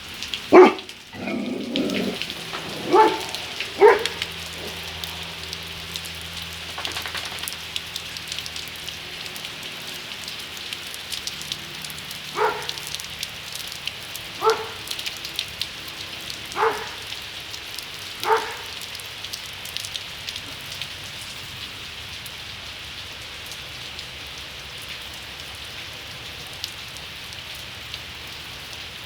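Doberman barking in short single barks over steady heavy rain: a few barks in the first seconds, then four more spaced about two seconds apart partway through. The barks are a guard dog warning off something near its territory.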